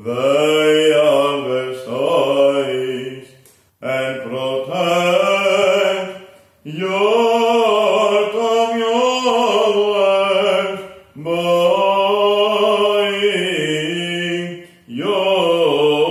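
Solo male voice singing Byzantine chant unaccompanied, in long held phrases whose pitch moves slowly, with four short pauses for breath.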